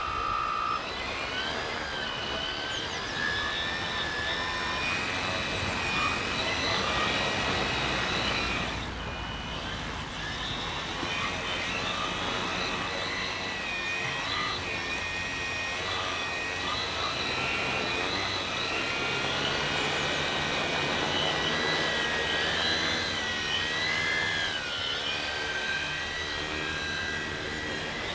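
A short steady beep opens the sound. Then a radio-controlled tricopter's three electric motors and propellers whine, their pitch wavering up and down as the throttle is worked, with a brief drop about nine seconds in.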